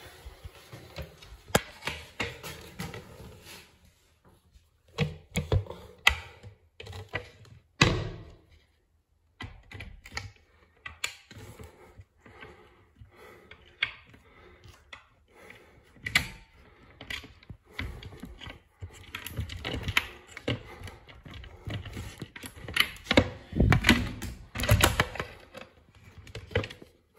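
Irregular clicks, taps and knocks of a toilet seat and its mounting brackets being handled, lined up and tightened on a wall-hung toilet, with a few louder knocks, one about eight seconds in and a cluster near the end.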